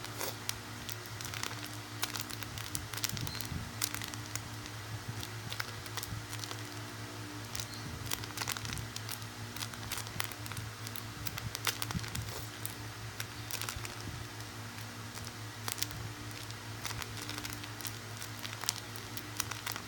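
Handling and squeezing a sushi-shaped foam squishy: soft irregular crackling and rustling, over a steady low electrical hum.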